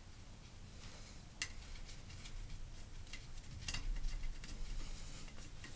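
Scattered light metal clicks and handling noise as a 1-inch aluminium wheel hub is pushed and fitted onto a steel go-kart axle.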